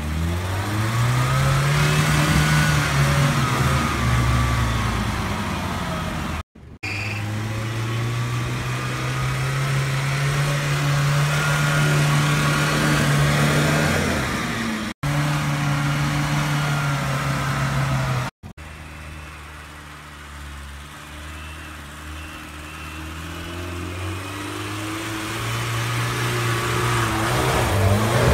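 UAZ-469 off-roader's engine revving and pulling under load on a snowy climb. It rises in pitch at the start, then holds a steady drone, broken by a few sudden gaps. It is quieter in the later part and grows louder near the end as the vehicle comes close.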